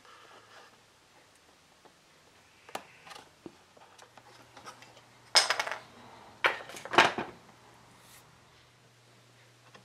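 Metal hand tools clinking and clattering on a wooden workbench as they are handled. There are scattered light taps and clicks, and two loud spells of clatter about halfway through.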